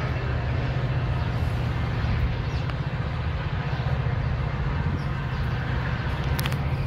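Metra diesel-hauled bilevel commuter train pulling away, a steady low rumble of its locomotive and rolling wheels on the rails.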